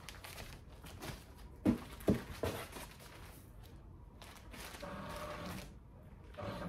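Clear plastic bags holding canvas baggies rustling and crinkling as they are handled and pulled from a cardboard box, with a few sharper crackles about two seconds in.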